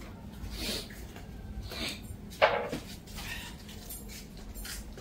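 A handful of short scrapes or swishes, the loudest about two and a half seconds in, over a faint steady hum.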